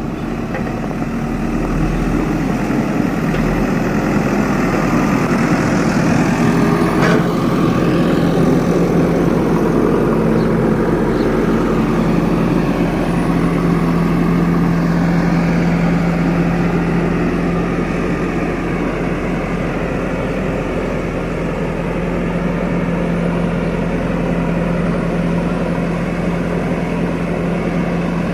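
JCB backhoe loader's diesel engine running steadily, with a brief clank about seven seconds in.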